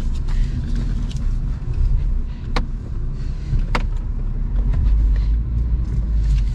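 Chevrolet Spark GT's engine and road noise heard inside the cabin as the car is driven slowly: a steady low rumble that grows heavier a little before the end. Two sharp clicks come about a second apart near the middle.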